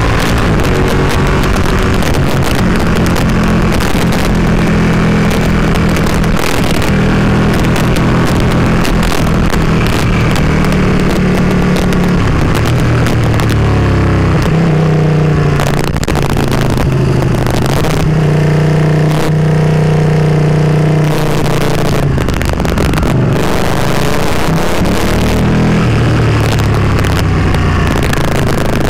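Motorcycle engine under way, its pitch rising and falling every few seconds as the throttle opens and closes through the bends, over steady wind rush.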